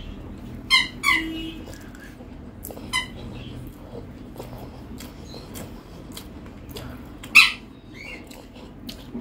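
A squeaky toy ball being squeezed over and over, giving four short, sharp squeaks at irregular gaps, two close together near the start and one loud one late on.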